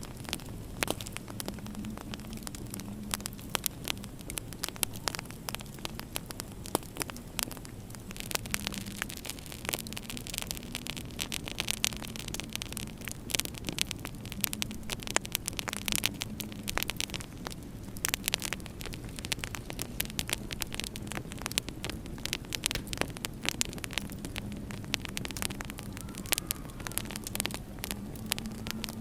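Wood fire crackling in a fireplace, with many small pops and snaps, over a low steady hum.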